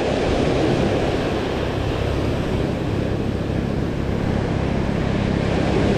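Ocean surf washing up and back over a sandy beach, a steady rushing noise.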